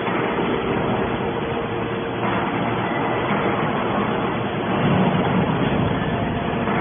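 Heavy scrap-metal baling machinery running steadily, a continuous engine-like drone with a faint hum, swelling louder for a moment about five seconds in.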